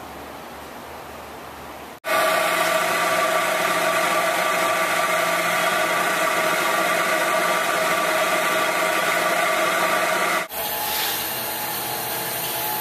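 Lagun vertical milling machine running: a steady mechanical whine of motor and gearing with several fixed tones. It starts abruptly about two seconds in after a quieter hum, and drops back to a lower level near the end.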